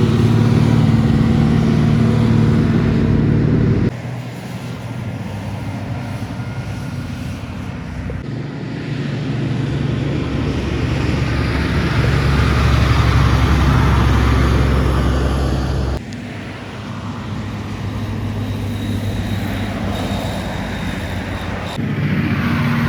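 Heavy trucks passing on a highway: diesel engines running under load with tyre and road noise. The sound changes abruptly about four seconds in, again about two-thirds of the way through and once more near the end, as one passing truck gives way to the next.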